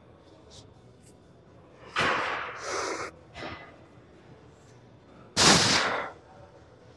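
A man's two forceful, noisy breaths, about two seconds in and again about five seconds in, as he braces under a heavy barbell on the bench press.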